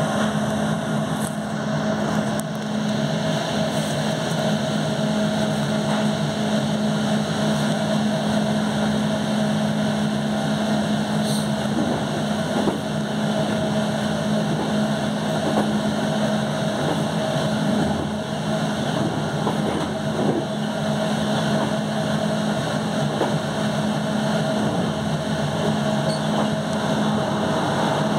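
Electric passenger train running along the line, heard from the front of the train: a steady hum with a constant low tone over continuous wheel-and-rail rumble, with a few faint clicks as it runs over points.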